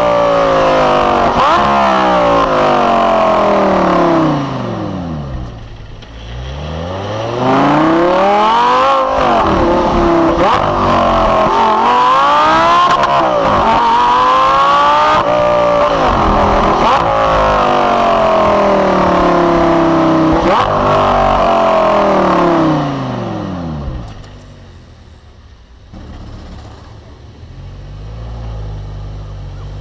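Lamborghini Gallardo LP560-4's 5.2-litre V10 accelerating hard through the gears, its pitch climbing and then dropping at each shift, with a brief easing off and falling revs around five seconds in. About twenty-three seconds in it dies away to a quiet low rumble.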